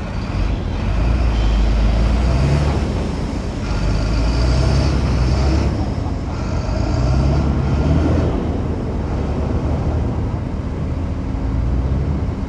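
Heavy earthmoving machine's diesel engine working under load, revving up and settling back three times in surges of about two seconds each, with a faint high whine during the revs.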